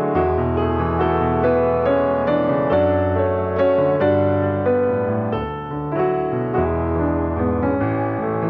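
Background piano music: a slow, gentle melody of struck notes over held bass notes.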